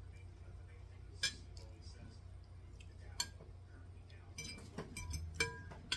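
Metal fork clinking against a ceramic plate while eating: single clinks about a second in and about three seconds in, then a quick run of clinks and scrapes near the end, some with a short ring.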